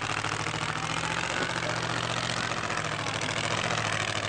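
Monster truck's engine running at steady revs with a fast, even exhaust beat and a steady hiss over it, as the truck drives up onto the cars.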